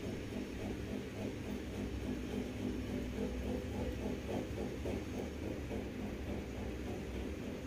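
Steady low background hum and rumble with no distinct event.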